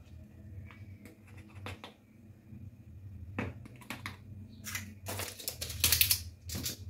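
Turmeric being shaken from a small spice shaker onto raw chicken pieces: a series of light taps and clicks, thickest and loudest about five to six and a half seconds in, over a steady low hum.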